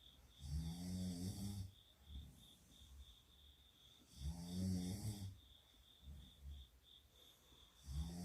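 A sleeping girl snoring: three loud, rasping pitched snores come roughly every three and a half to four seconds, the last starting near the end. Softer breathing sounds fall between them.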